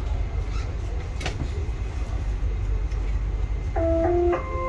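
Steady low rumble inside a Dubai Metro train, with a sharp click about a second in. Near the end a two-note chime sounds, lower then higher: the tone that comes before the 'doors closing' announcement.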